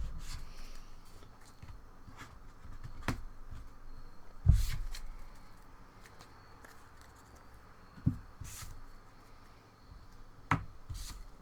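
Trading cards being handled and rustled on a tabletop, with scattered light taps and clicks and one heavier thump about four and a half seconds in.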